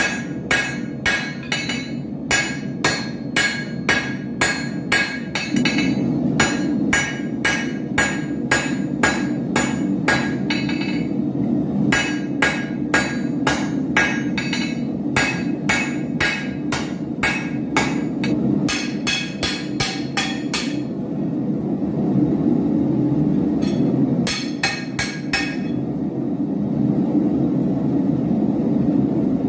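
Forging hammer striking steel on an anvil, about two ringing blows a second in runs broken by short pauses, over a steady low rushing noise.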